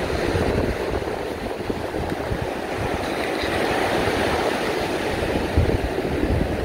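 Ocean surf breaking and washing up a beach: a steady rushing wash of waves, with irregular low rumbles underneath.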